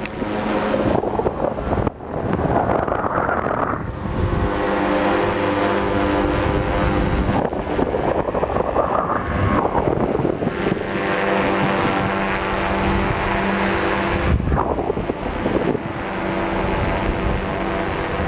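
Wind buffeting the microphone of a camera carried through the air on a soaring paraglider, a constant loud rush with gusty swells. A steady humming of several tones comes in about four seconds in and drops out briefly near the end.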